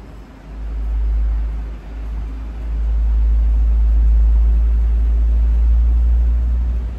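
A deep, low rumble with almost nothing above it. It swells about half a second in, dips briefly near two seconds, then holds loud and steady from about three seconds on.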